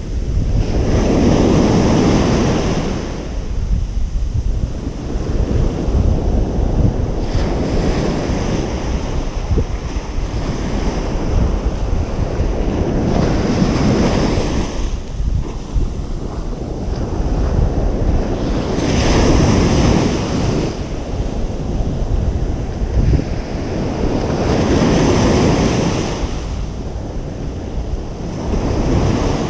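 Ocean surf washing onto a beach, a wave surging in and ebbing away about every five to six seconds, five times. A steady low rumble of wind on the microphone runs underneath.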